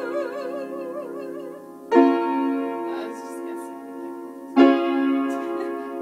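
A singer's held note with a wide vibrato, fading out about a second and a half in, then two piano chords struck about two and a half seconds apart, each left to ring and die away, ending the song.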